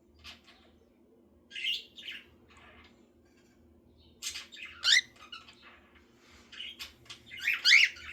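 Pet bird chirping and squawking in short separate calls, a sharp gliding call about halfway through and the loudest cluster of chirps near the end, over a faint steady hum.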